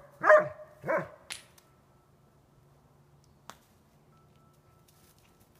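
German Shepherd barking twice in quick succession, then falling quiet; a single sharp click follows about three and a half seconds in.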